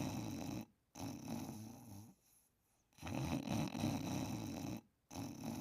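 Slow, regular snoring of a sleeper in deep sleep. Each breath brings a loud snore followed by a softer one, with about a second of quiet between breaths, and two such breaths are heard.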